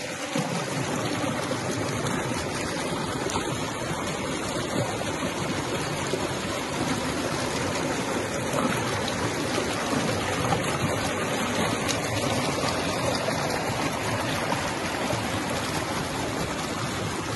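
Mountain stream rushing over boulders, heard close up: a steady rush of white water.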